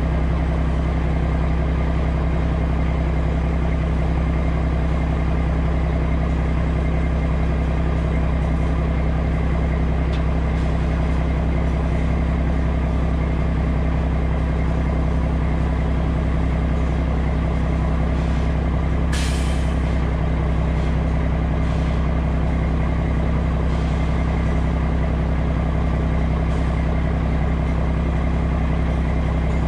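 Mack CH613 dump truck's diesel engine running steadily at one even speed, driving the hydraulic hoist that tips the end-dump trailer's steel tub up to unload. A short hiss of air about 19 seconds in.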